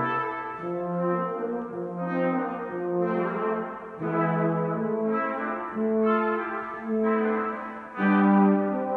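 Brass quartet playing held chords that change about once a second, with a brief dip between phrases and a louder chord near the end.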